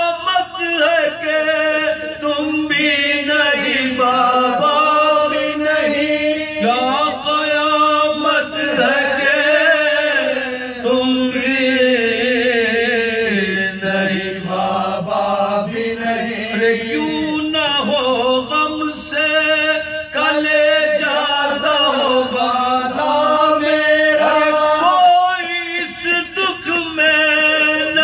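Male voices chanting a soz, a Shia lament sung without instruments, in long wavering held lines.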